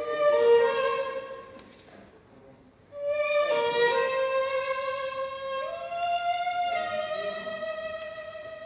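Instrumental music with held, sustained notes. A short phrase comes first and fades about two seconds in; from about three seconds in, notes sound together, and the upper note steps up in pitch near the six-second mark.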